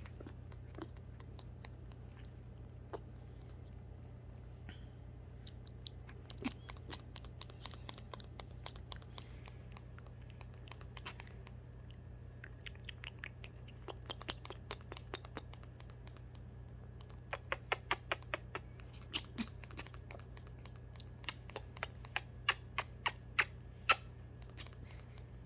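Umbrella cockatoo tapping and scratching at something hard: runs of sharp clicks and scrapes, coming in quick series that are loudest near the end.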